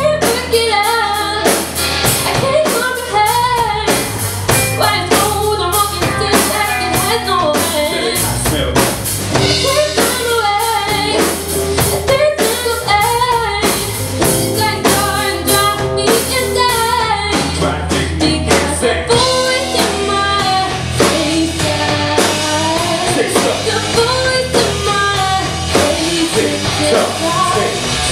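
A rock band playing live: drum kit, bass and guitar, with a voice singing a wavering melody over them.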